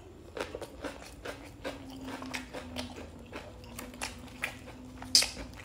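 Crisp crunching of a mouthful of raw red bell pepper being chewed close to the microphone: a steady run of small crackles, with one sharper click near the end.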